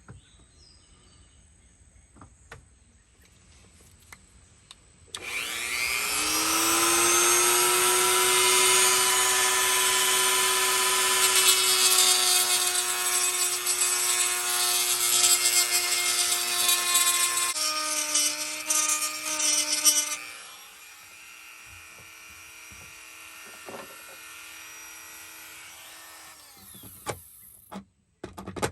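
Dremel-type rotary tool spinning up about five seconds in to a steady high whine and grinding as it bores out the ignition switch hole in the instrument panel, the pitch dropping under load near the middle. It then runs more quietly for several seconds and stops near the end.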